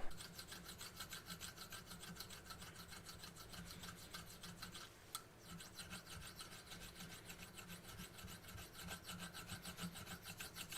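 A hand file worked back and forth over a steel hydraulic cylinder piston rod, filing down raised spots where the metal has been pushed up. The strokes are quick and even, about four to five a second, with a brief pause about five seconds in.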